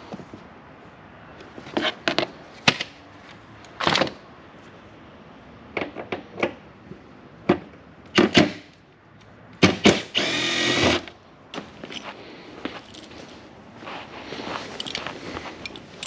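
Tools being handled in a truck's under-seat storage compartment: scattered clicks and knocks of wrenches and the plastic tray. About ten seconds in, a cordless drill runs for about a second.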